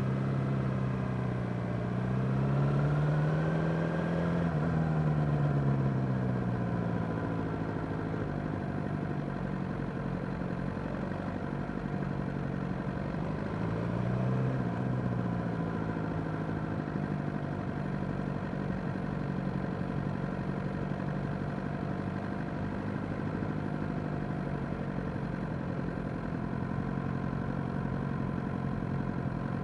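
Suzuki GSX-R600's inline-four engine running on the road at low speed, its note rising with the throttle a couple of seconds in, easing off, rising briefly again about fourteen seconds in, then holding steady.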